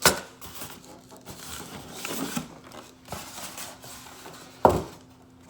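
Packaging being handled while parts are taken out of a box: soft rustling with a few knocks, the loudest a sharp knock about four and a half seconds in.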